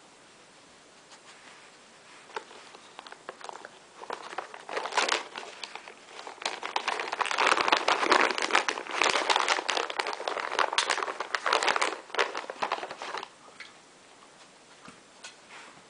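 A dog nosing tennis balls around in a metal muffin tin to get at treats hidden in the cups: a busy run of scraping, knocking and rattling against the tin. It builds over the first few seconds, is busiest in the middle, and dies away near the end.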